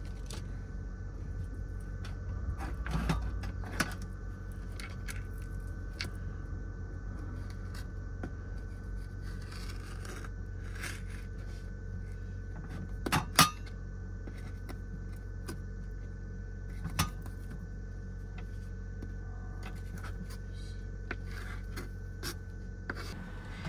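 Kitchen knife cutting through a split dried fish on a wooden cutting board, with a few sharp knocks of the blade on the board, the loudest about halfway through. A steady low hum runs underneath.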